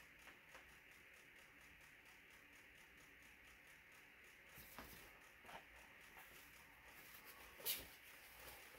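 Near silence with faint room hiss, broken by a few soft handling rustles and one brief, louder rustle near the end.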